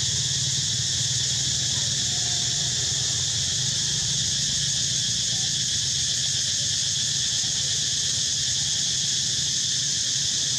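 Steady insect chorus, a continuous high-pitched drone that does not change, over a low steady hum.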